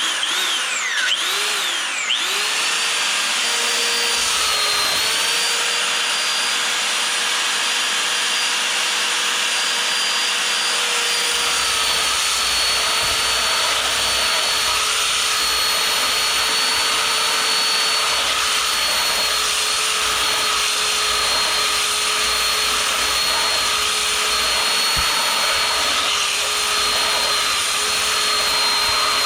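A handheld electric power tool switched on, its motor spinning up with a quick wavering rise in pitch, then running steadily with a constant whine.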